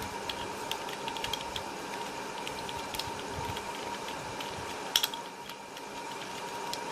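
Plastic Rubik's cube pieces clicking and rattling as they are handled and fitted into the core during reassembly, with one sharper click about five seconds in.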